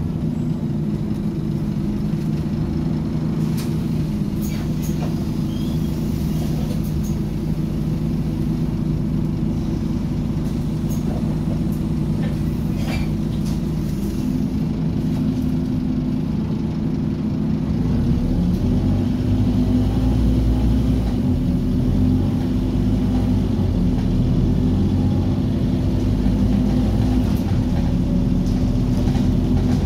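Scania OmniCity bus's diesel engine and drivetrain running, heard from inside the passenger cabin, with a few short rattles in the first half. About two-thirds of the way through the engine gets louder and deeper.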